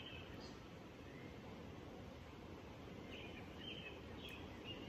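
Faint outdoor background noise with a few short, high bird chirps, most of them clustered about three seconds in.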